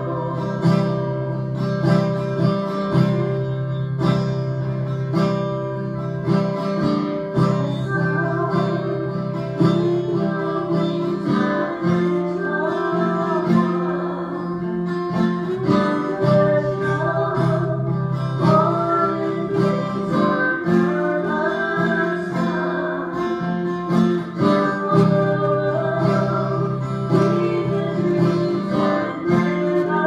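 Acoustic guitar strummed in a steady rhythm, with women's voices singing along.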